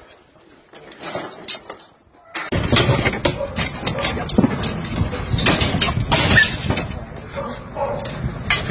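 Metal wire cages clanking and rattling as they are hooked and pulled with a metal pole, a rapid string of sharp knocks starting about two and a half seconds in.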